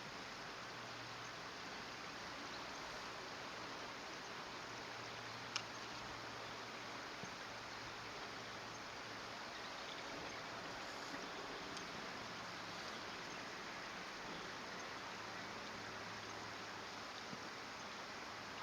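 Steady rush of flowing stream water with a faint low hum beneath it; a single sharp click about five and a half seconds in.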